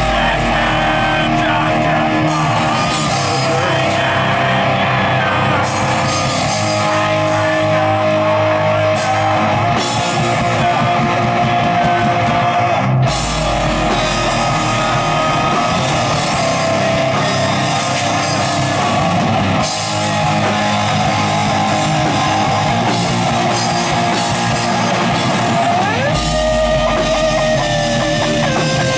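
Metal band playing live at full volume: guitars over a drum kit, with the low end getting heavier for a few seconds near the start, about halfway through and near the end.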